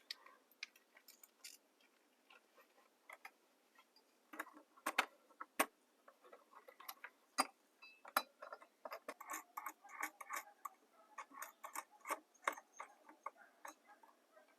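Faint, irregular clicks and taps of a screwdriver and screws on a metal wall lamp as it is tightened onto its mounting, coming more often in the second half.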